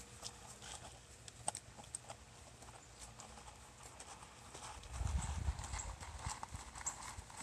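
Horse hooves clip-clopping in an irregular patter of sharp clacks, with a low rumble coming in about five seconds in.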